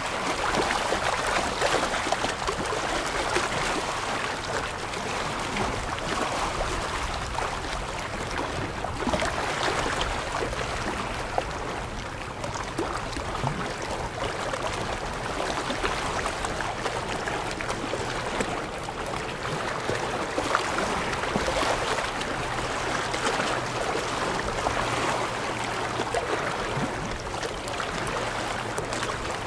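Small waves lapping and splashing over rocks along the shore, a continuous wash of water that swells and eases every few seconds.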